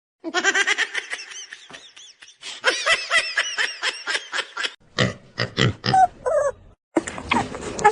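Short, pitched animal calls in quick succession, with abrupt breaks between them.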